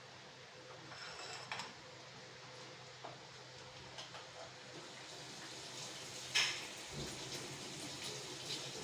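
Potato chips frying in hot oil with a faint, even sizzle. Kitchen utensils click and knock a few times, most sharply about six and a half seconds in.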